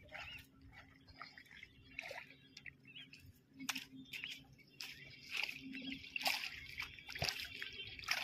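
A hooked rohu, about a kilo to a kilo and a half, splashing at the surface in shallow water at the edge of the bank, in short, irregular splashes.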